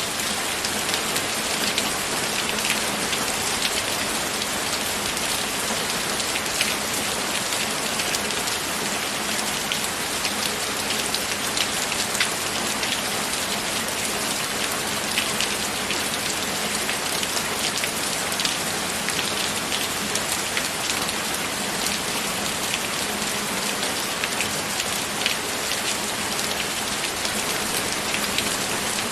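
Steady rain falling: an even hiss with scattered drops ticking on a surface.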